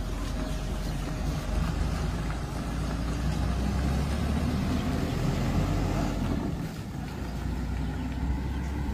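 Large cargo truck's engine running as the truck drives away up the road, a steady low drone.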